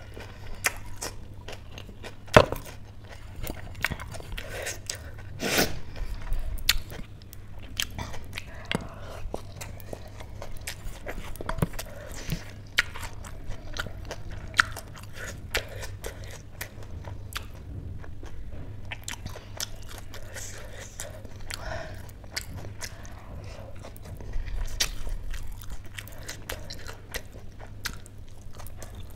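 Pani puri being eaten: crisp hollow puri shells cracking and crunching between the teeth, then chewed, with frequent sharp irregular crunches.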